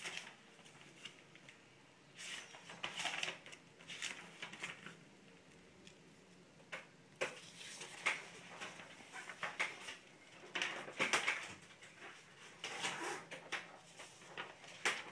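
Handling noise: irregular rustling and scraping with a few sharp clicks.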